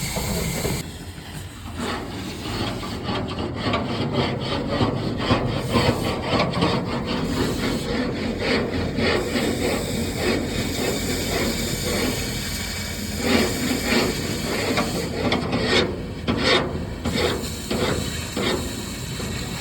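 Excavator working in rock: irregular scraping, grinding and knocking of stone and steel over a steady low engine hum.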